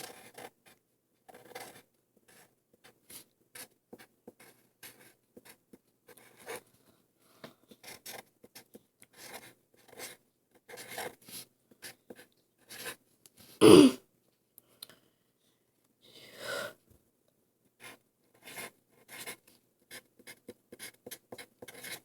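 Handwriting on a sticky note: a long run of short, quiet scratchy strokes as the words are written out. A brief louder sound, possibly a vocal one, with a falling pitch comes about 14 s in.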